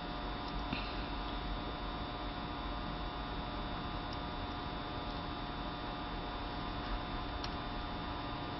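Steady electrical hum and hiss with several faint whining tones, and a few faint small ticks here and there.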